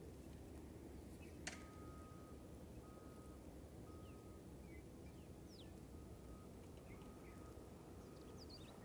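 Faint outdoor ambience: a steady low rumble with a few faint high bird chirps and a faint tone that comes and goes in short dashes. A single sharp click about one and a half seconds in.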